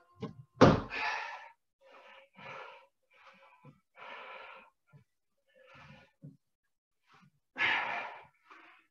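A thud of feet landing from a jump squat about half a second in, then a man's heavy, effortful breathing, breathy exhalations every second or two, while he pulls on a swim cord resistance band. The loudest exhalation comes near the end.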